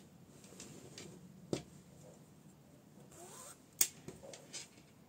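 Quiet rustling and handling of sewing things, with a few sharp clicks or taps, the loudest a little under four seconds in.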